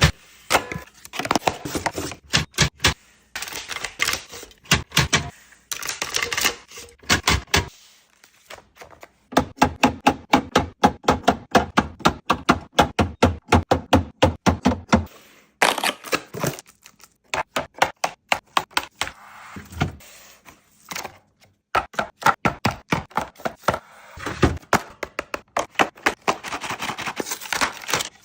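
A rapid run of light clicks and knocks, several a second, with brief pauses between runs.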